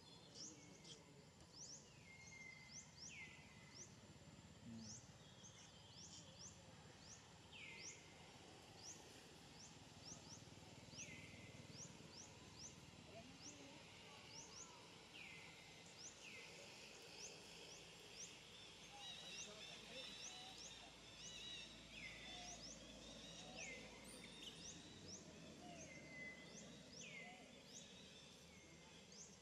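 Faint outdoor ambience of birdsong: short calls sliding down in pitch, repeated every couple of seconds, over a steady run of quick high chirps.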